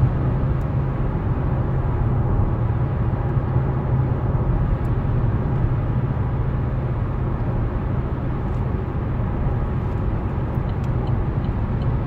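Steady road and engine noise inside the cabin of an Opel Insignia A with the 2.0-litre A20DTH diesel, cruising at about 120 km/h on the motorway while its diesel particulate filter regenerates. A low, even rumble with tyre and wind hiss over it.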